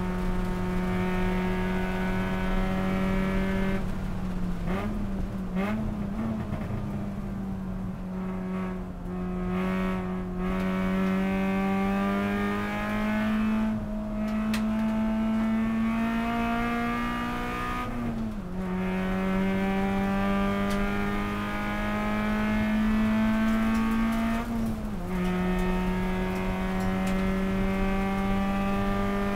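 Honda Civic FG race car's four-cylinder engine heard from the cockpit, working hard at speed. Its note climbs slowly under throttle, with a sharp drop at each gear change or lift, four or five times. A wavering stretch early on matches braking and downshifting into a corner.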